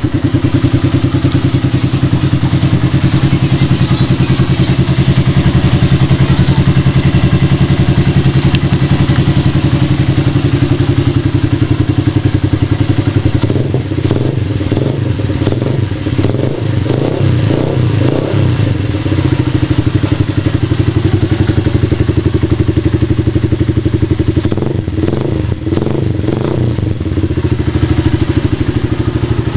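Yes 125 motorcycle's 125 cc single-cylinder engine running through an aftermarket Roncar aluminium exhaust, idling steadily and loud. Its note turns rougher and uneven for a few seconds near the middle and again about three-quarters of the way through.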